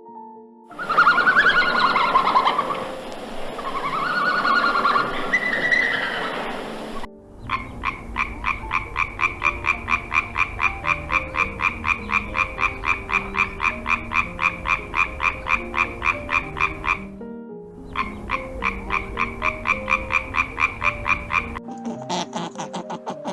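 A frog calling: a long run of rapid, evenly pulsed croaks, about five a second, broken once by a short pause. For the first several seconds a different, noisier wavering sound is heard instead.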